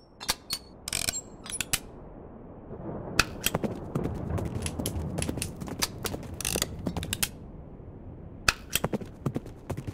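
Dead or Alive 2 video slot sound effects: a steady mechanical rattle as the reels spin, with clusters of sharp clicks as they stop. This repeats over successive spins.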